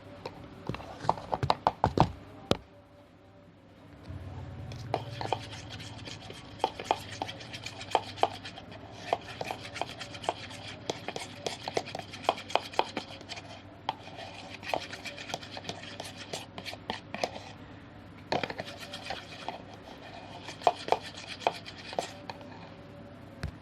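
Spoon stirring thick clear-glue slime mixture in a container, clicking and scraping against the container in quick irregular taps, with a brief pause about two and a half seconds in.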